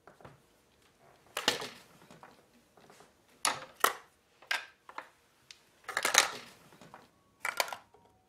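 Toiletries and small items being picked up, set down on a dressing table and packed into a cosmetic bag: a string of separate knocks, clicks and clinks with short rustles, the loudest about a second and a half in and around six seconds in.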